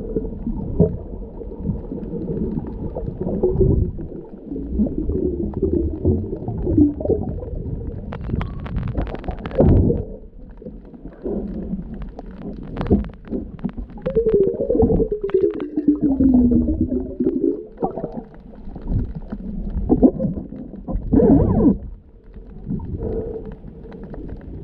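Muffled underwater rumble of water moving against a submerged camera housing as a diver swims, with scattered knocks and clicks. Around the middle a wavering tone slides down in pitch.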